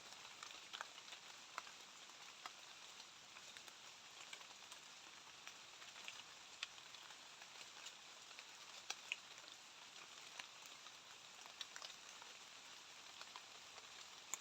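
Light rain falling, heard faintly as a steady hiss with scattered separate drops ticking at irregular moments.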